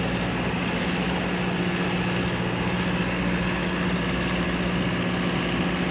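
Boeing 929 jetfoil's gas turbines running steadily, a constant engine hum with a higher whine over it.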